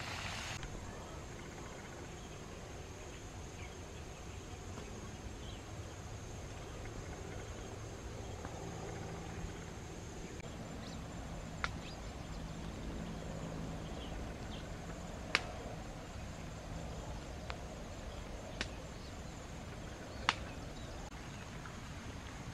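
Steady outdoor background noise with a faint high, even whine, broken by a few sharp clicks in the second half.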